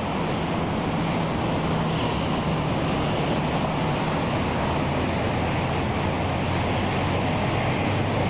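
Steady rumble of road traffic, an even wash of noise with a faint low engine hum running under it.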